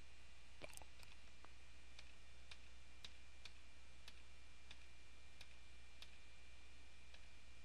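Quiet room tone: a steady low hum with faint, light clicks, about two a second.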